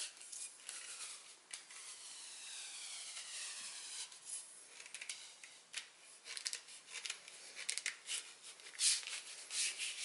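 Rolled-paper tube wrapped in packing tape being slid off the rod it was formed on: a squeaky rubbing whose pitch falls over the first few seconds, then a run of short scrapes and clicks as the tube works free.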